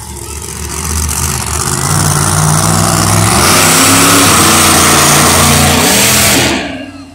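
Monster truck engine revving hard as the truck accelerates across the dirt arena. The sound builds over the first couple of seconds, holds loud at full throttle, then drops away sharply near the end as the throttle is let off.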